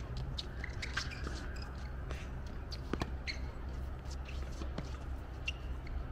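Tennis ball struck by rackets during a rally on a hard court: a few sharp pops a second or more apart, the strongest about three seconds in, with fainter ball bounces and footfalls between them, over a steady low rumble.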